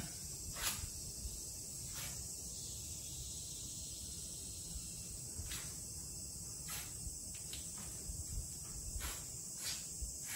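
Scattered light clicks and knocks, about half a dozen, over a steady high-pitched hiss and a low background rumble.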